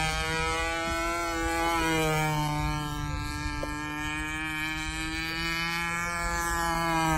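Radio-controlled model airplane's motor and propeller buzzing steadily in flight, the pitch wavering slightly as the plane passes low across the field.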